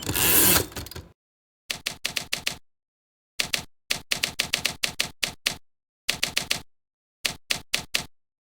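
Manual typewriter typing in quick bursts of key strikes with short pauses between them. A longer sliding rattle comes in the first second and again at the very end, like a carriage return.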